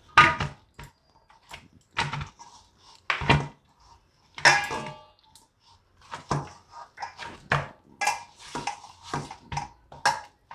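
Hands kneading a stiff dough in a stainless steel bowl: irregular knocks and thumps as the dough is pressed and the bowl shifts, several with a short metallic ring from the bowl.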